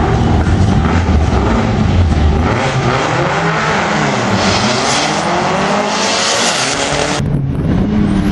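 Turbocharged 1955 Volkswagen Beetle with a 2.0 ABA four-cylinder running at full throttle down the drag strip and passing by, its note sweeping in pitch as it goes. About seven seconds in, the sound cuts abruptly to an engine running at the start line.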